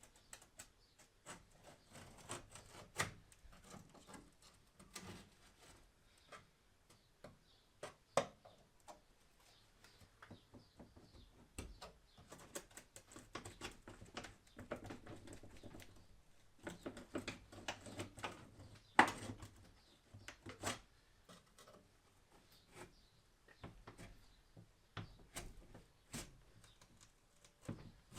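Irregular clicks, taps and knocks of hand tools and metal parts being handled during work on an engine, with a few sharper knocks, the loudest about two-thirds of the way through.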